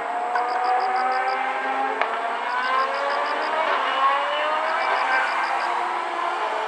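Racing car engines accelerating on a circuit, their pitch climbing in several long rises that drop back and climb again.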